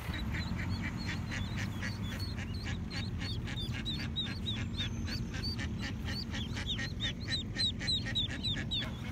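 Mallard ducklings peeping: a fast, unbroken run of short high peeps, several a second, over a steady low hum.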